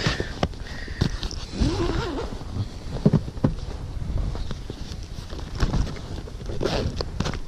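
Irregular knocks, taps and rustling of handling in an inflatable boat, as a caught fish and the fishing gear are moved about.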